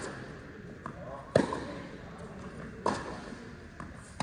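Tennis rally on an indoor court: sharp pops of rackets striking the ball and the ball bouncing, about one every second and a half, the loudest about a second and a half in, each echoing briefly in the hall.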